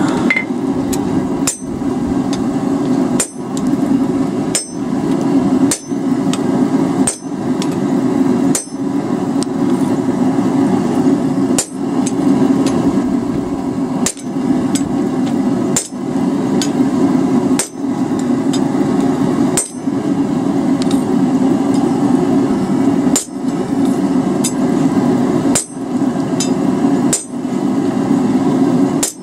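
Blacksmith's hammer striking a top fuller over hot steel on the anvil, a steady series of blows about one a second, over a steady low rushing noise.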